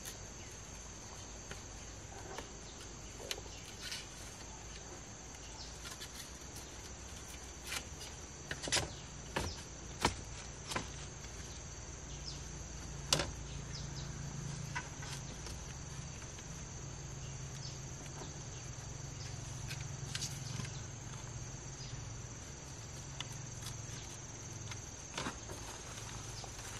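Insects droning steadily at a high pitch, with scattered sharp knocks and clicks; the loudest come in a short cluster about nine to ten seconds in and once more about thirteen seconds in.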